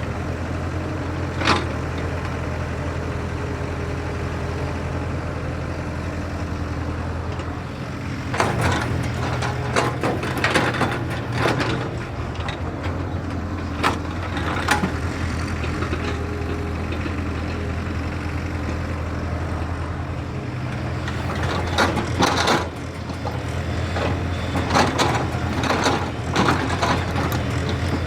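A JCB excavator's diesel engine runs steadily. Bursts of clattering and knocking come about eight seconds in and again about twenty-two seconds in.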